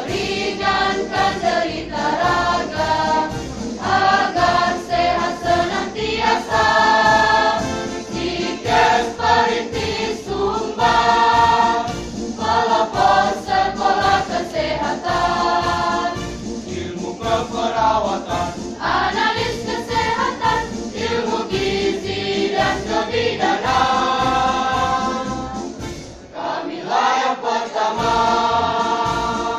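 Women's choir singing a college march, the institution's anthem, in sustained sung phrases, with a short break between phrases about three-quarters through.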